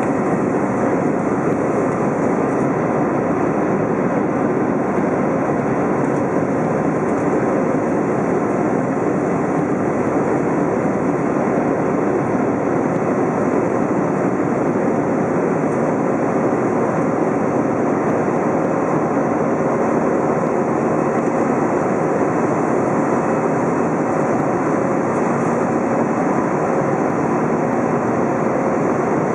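Steady cabin roar inside an Airbus A320 climbing after takeoff: its jet engines and the rushing airflow blend into one even, loud noise with a faint steady hum, unchanging throughout.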